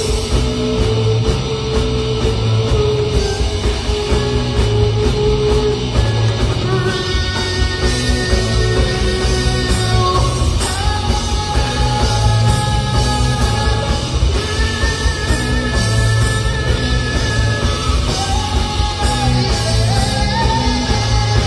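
Rock band playing live: electric guitar, bass guitar and drums, with a steady driving beat and long held melody notes.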